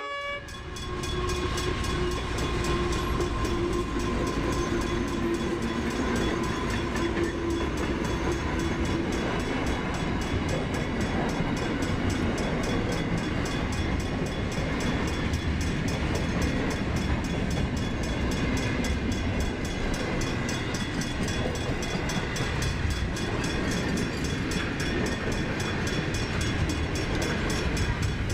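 Long container freight train passing, its wagons and wheels running steadily along the rails. A steady whine sounds over the first several seconds and then fades.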